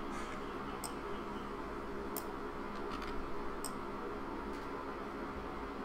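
A few sharp computer mouse clicks, roughly a second apart, over a steady low hiss of room noise.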